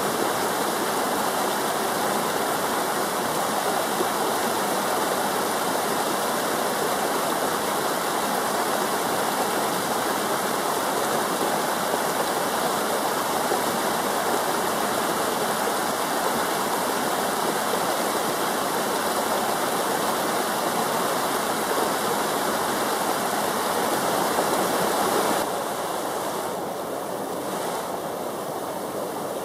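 River water rushing over rapids in a steady, even rush that becomes a little quieter near the end.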